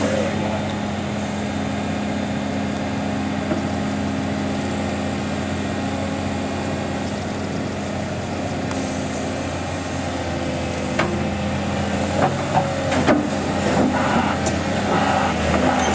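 35-tonne excavator's diesel engine running steadily under load. In the last five seconds or so, knocks, clanks and scraping squeals join it as the bucket digs.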